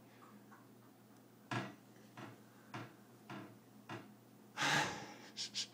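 Kitchen cabinet door being bumped and handled by a toddler: a run of soft knocks roughly every half second, then a louder scuffing clatter and two quick clicks near the end.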